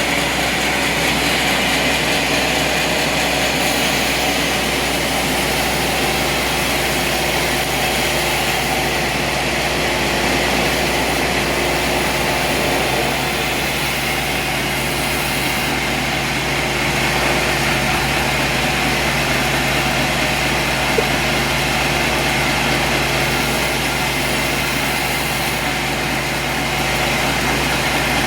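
Sawmill machinery running steadily, a constant engine-like drone with steady tones.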